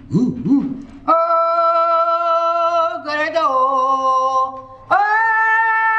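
A man singing a Gurage song unaccompanied, in a high, strained voice. It opens with short rising-and-falling vocal whoops, then long held notes: one drops in pitch about three seconds in, and after a short break a higher note is held from about five seconds. The judges hear his melody as breaking now and then.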